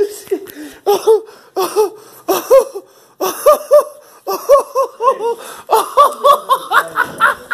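A person laughing hard in quick runs of short, high-pitched 'ha's, broken by brief pauses.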